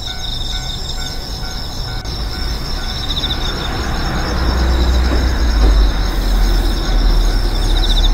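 A train passing, heard as a low rumble that builds from about halfway through and is loudest near the end. Over it, a faint tone repeats about twice a second and stops around three seconds in.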